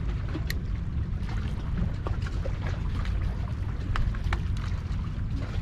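Water splashing over a steady low rumble, with a few sharp ticks about half a second in and again around four seconds.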